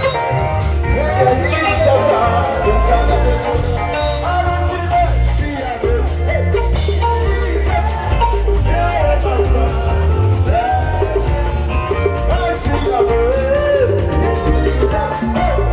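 Live gospel band playing loudly: a singer over drum kit, bass guitar, keyboard and hand drums, with a heavy bass line.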